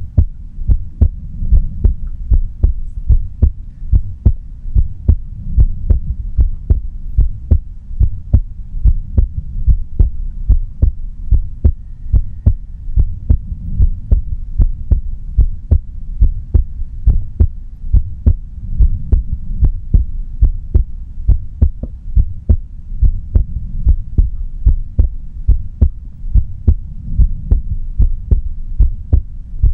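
A human heartbeat heard close-up, beating steadily and evenly at about a beat and a half per second, each beat a low thud with a sharp click.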